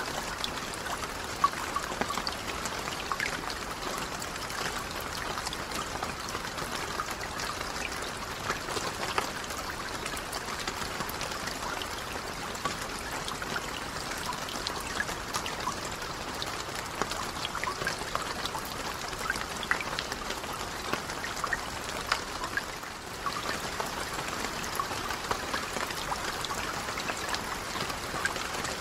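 Steady rain falling on lake water: a dense, even patter with many small drops and scattered sharper drips.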